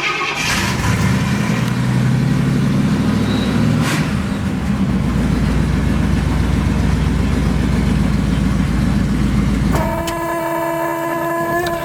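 1973 Pontiac Firebird Esprit's 350 V8 running just after starting, its note settling lower and steadier about four seconds in. After about ten seconds the engine shuts off and a steady dashboard warning buzzer sounds.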